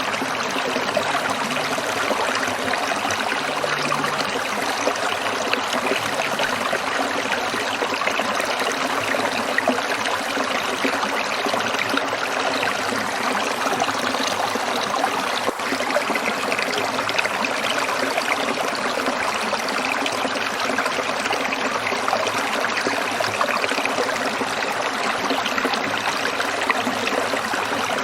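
Shallow stream trickling and babbling over stones, a steady rush of water with no let-up.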